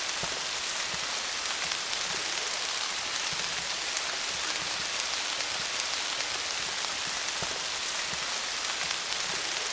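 Steady rain falling on leaves: a dense, even hiss of many drops, with individual drops ticking through it.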